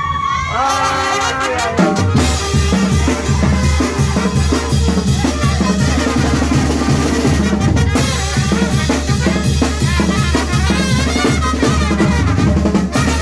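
Loud music with a steady drum beat and bass, the full beat coming in about two seconds in, with melodic instruments playing above it.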